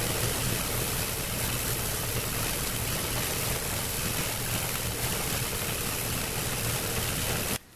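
Disc sander running steadily as a small wooden piece is pressed against the spinning abrasive disc to round its end: a constant motor hum with a sanding hiss. It cuts off suddenly near the end.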